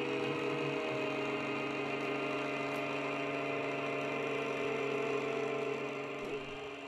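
Small motor running with a steady whirring hum, likely driving the animated control-line model-flying figure in the miniature scene; the hum eases off slightly near the end.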